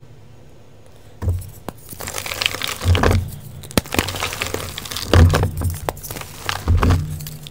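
Blocks of gym chalk crushed and crumbled between the fingers: dry crunching and crackling with dull thumps, starting about a second in.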